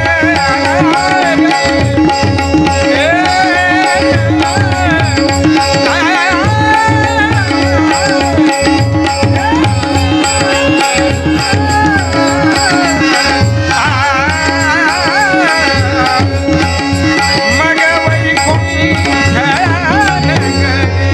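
Devotional abhang music: a steady hand-drum rhythm under held drone tones, with a gliding, ornamented melody line running over them.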